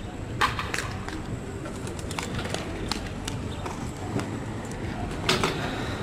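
Pigeons cooing over steady outdoor background noise, with a few sharp clicks near the start and again near the end.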